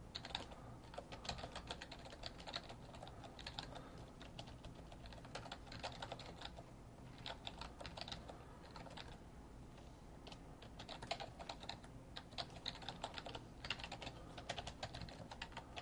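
Typing on a computer keyboard: faint, quick, irregular key clicks with brief pauses between runs of keystrokes.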